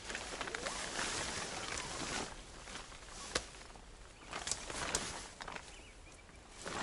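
Dome tent being pitched: tent fabric rustling and handling noises, with a sharp click about three and a half seconds in.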